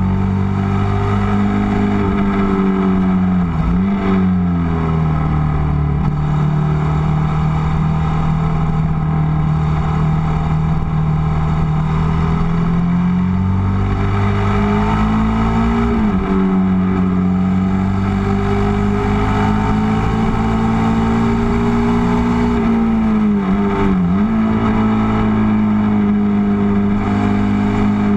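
Ducati Multistrada's L-twin engine running under way at cruising speed, heard close up with wind and road rush. The engine note climbs gradually about halfway through and drops briefly three times, about four seconds in, around sixteen seconds and near the end, as the throttle is rolled off and back on.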